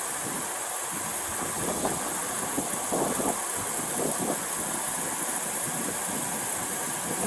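Car engine idling steadily under a constant hiss, with a few faint muffled sounds now and then.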